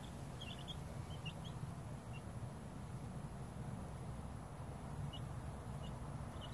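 White Leghorn chicks, two weeks old, giving faint, scattered high peeps, a few short ones close together near the start and again near the end, over a low steady background rumble.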